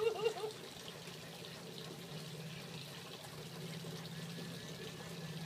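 A small battery-powered toy bubble gun's motor whirring steadily as it blows bubbles: a low buzz that grows stronger about two seconds in.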